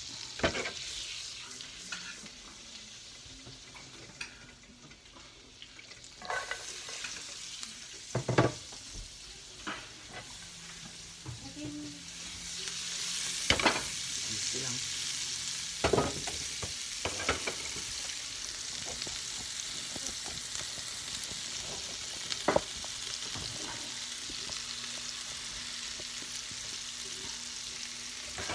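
Shrimp teriyaki in oyster sauce and honey sizzling in a frying pan as it is stirred, with a utensil knocking against the pan now and then. The sizzle grows louder about halfway through.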